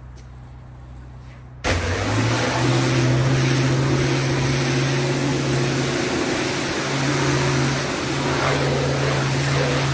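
Pressure washer starting up suddenly about two seconds in, then running steadily: a low machine drone with a loud hiss over it.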